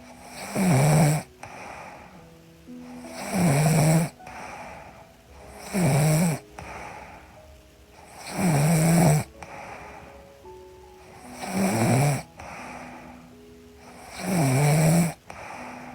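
A young woman snoring in her sleep: six loud, even snores, one about every two and a half seconds, over soft background music with held notes.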